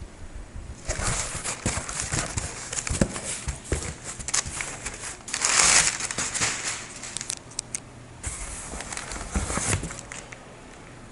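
Packaging being handled and crinkled as a parcel is unpacked: irregular crackling and rustling bursts, loudest about halfway through, with a brief pause before a last flurry.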